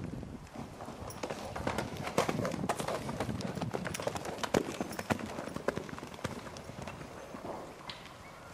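Hooves of loose horses trotting and cantering on a dirt paddock: a dense, uneven run of hoof beats that thins out near the end.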